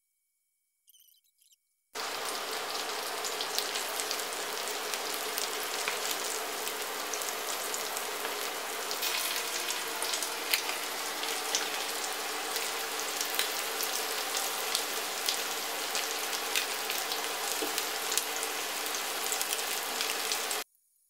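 Breaded chicken pieces frying in hot oil in a pan: a steady sizzle with frequent small crackles and pops. It starts abruptly about two seconds in and cuts off abruptly near the end.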